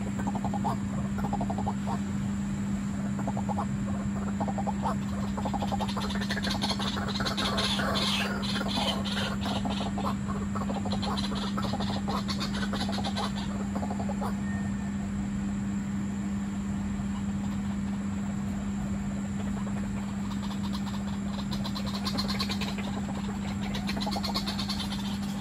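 White-breasted waterhens calling with rapid, frog-like croaking pulses, most intense in the middle and again near the end, over a steady low hum.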